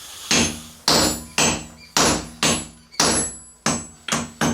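Hammer blows on hot steel on an anvil, about nine strikes at roughly two a second, each with a short ringing note.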